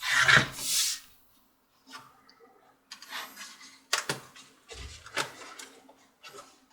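An HP Pavilion 15 laptop being flipped over and handled on a work surface: a rustling clatter in the first second, then scattered knocks and clicks of plastic, with one dull thump, as the palm rest is pulled at.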